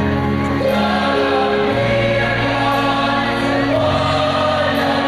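Mixed choir singing a slow Christian song through a sound system, in long held chords that shift every second or two.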